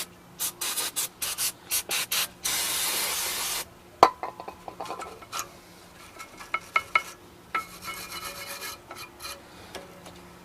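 Brake cleaning on a car's rear brake caliper bracket: a quick run of short hissing, scrubbing strokes, then a steady spray of aerosol brake cleaner lasting about a second. About four seconds in comes a sharp metal clank, followed by light metallic clinks and some rubbing.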